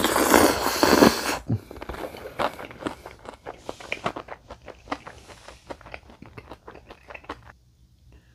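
Loud slurp of black-bean-sauce instant noodles (Chapagetti) sucked up from the bowl for about the first second, then close-up wet chewing of the mouthful with many small smacks and clicks, fading out shortly before the end.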